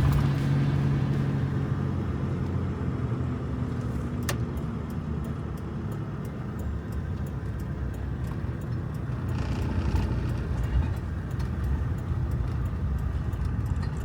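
Campervan on the move: a steady engine and road rumble, with a sharp click about four seconds in and light ticking through the rest.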